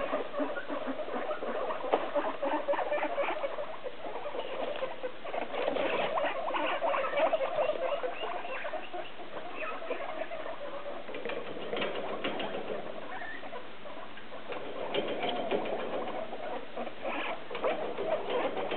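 Several hungry guinea pigs calling continuously, a dense overlapping chorus of squeaks (their wheeking for food), mixed with many short clicks and rustles.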